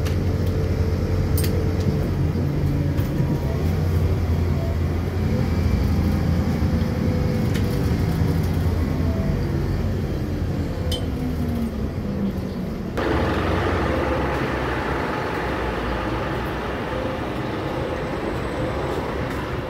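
Low rumble of a city transit vehicle heard from inside as it rides, its drone sliding down in pitch as it slows. About two-thirds of the way through it cuts abruptly to even outdoor street noise.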